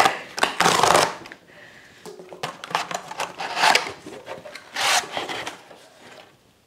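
A blade slitting the packing tape along a cardboard shipping box, with the tape ripping open at the start and again about a second in. Then the cardboard flaps are folded back, scraping and rustling against each other.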